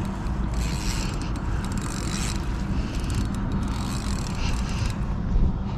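A fishing reel being cranked, its gears ratcheting, over a steady low rumble of wind on the microphone.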